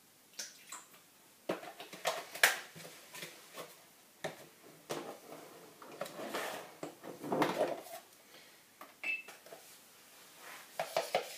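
Irregular knocks, clicks and clinks of containers and utensils being handled at a kitchen counter, with a longer rustling stretch near the middle, as ingredients are added to a Thermomix bowl.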